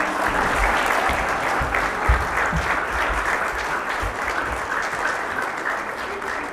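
Audience applauding steadily, with a few dull low thumps underneath, the loudest about two seconds in.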